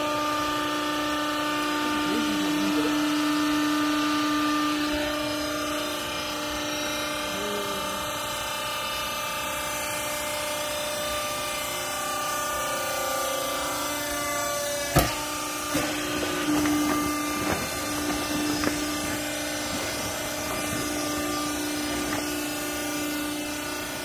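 Electric motor and hydraulic pump of a vertical hydraulic clothes baler running with a steady hum. A single sharp metallic knock comes about 15 seconds in, followed by a few lighter knocks.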